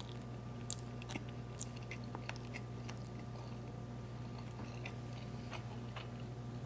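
Close-up eating sounds of a man chewing a mouthful of lo mein noodles: scattered soft wet mouth clicks and smacks. A steady low hum runs underneath.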